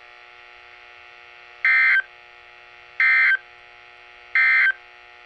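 Three short bursts of the NOAA Weather Radio SAME digital data tone, the end-of-message code that closes an Emergency Alert System broadcast, each burst a harsh warbling screech about a third of a second long and a little over a second apart. A steady radio hum runs underneath.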